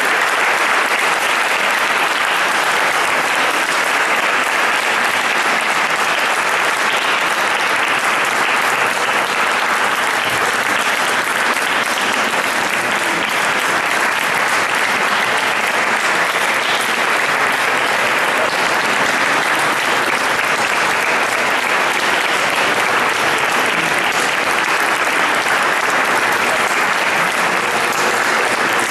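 Audience applauding, a dense and steady clapping that never lets up.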